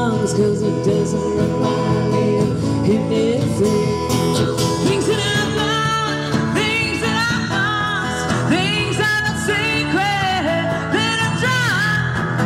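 Country band playing live on acoustic guitars, strummed steadily, with a voice singing the melody.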